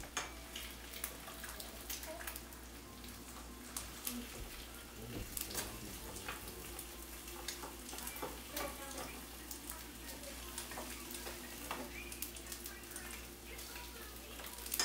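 Eggs frying in a pan, sizzling with many small crackles, with occasional clicks of a utensil against the pan as they are worked apart.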